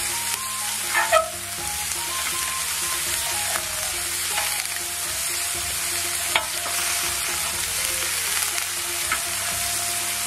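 Skewered prawns and squid frying on a hot oiled iron teppanyaki plate: a steady sizzle. A few sharp clicks cut through it, the loudest about a second in.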